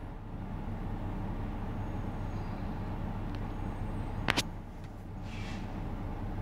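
Fire engine's diesel engine running with a steady low rumble as the rig rolls slowly forward. Two sharp cracks come just past four seconds in, followed by a brief hiss about a second later.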